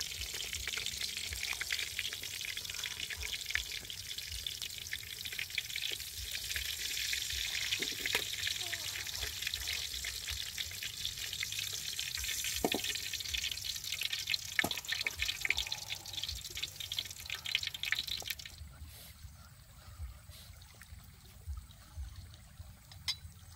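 Fish frying in hot oil in a wok: a steady sizzle with many small crackles, which stops abruptly about three-quarters of the way through, leaving a much quieter background with a few light knocks.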